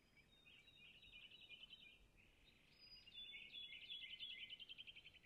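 Faint birdsong: rapid chirping trills in two phrases, the second beginning about two seconds in and slightly louder.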